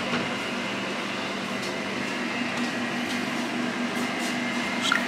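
Steady mechanical hum with a constant low drone, as from a motor or engine running.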